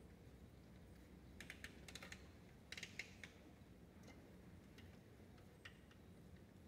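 Near silence over a steady low rumble, broken by a few clusters of faint quick clicks, the main ones about one and a half and three seconds in.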